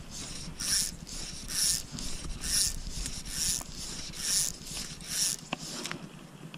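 Fly-casting strokes with a fly rod and line: a short swish about once a second, six in all, in time with the back-and-forth strokes. Low wind rumble on the microphone sits under the first few seconds.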